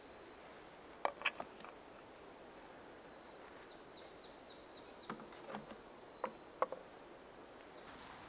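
Carved wooden cups and a spoon knocking against a wooden branch rack as they are hung up: a few sharp wooden clacks about a second in, and more between about five and seven seconds in. Around four seconds in a bird gives a quick run of about seven short, high, descending chirps.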